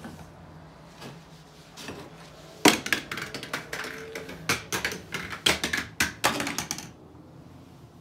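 A rapid, irregular run of sharp clicks and knocks, starting about two and a half seconds in and lasting about four seconds, like objects being handled.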